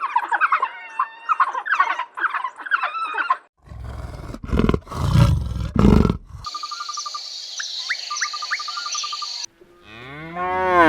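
A run of animal calls cut one after another: chirping bird calls, then a loud, deep animal roar lasting about three seconds, then a high steady trilling with a few short rising chirps. A long, low moo begins near the end.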